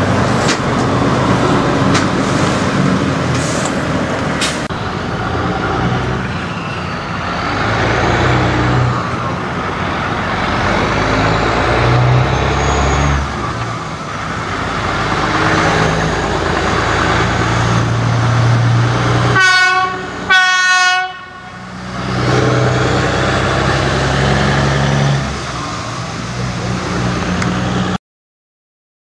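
Semi-truck diesel engines running as the rigs pull away, the engine note rising and falling through the gears. About two-thirds of the way in, a truck horn sounds two short blasts, the loudest sound here.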